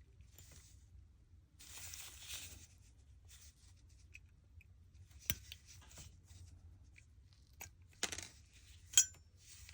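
Faint handling noises on a workbench: a soft scrape or rub about two seconds in, then a few sharp small clicks, one a little after five seconds and one near the end, as parts are handled during disassembly.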